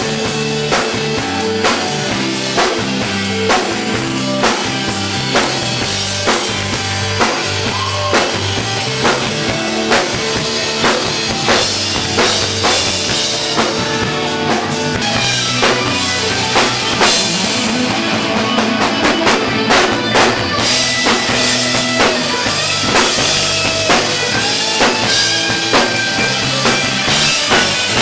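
Live rock band playing: a drum kit keeps a steady beat under electric guitar.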